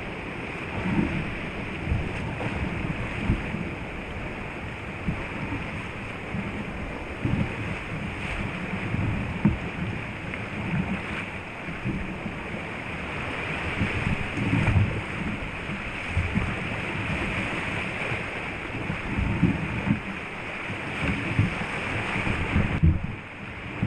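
Sea surf and whitewater washing and churning around a sea kayak, a steady hiss of foaming water with irregular low thumps. The wash drops away briefly near the end.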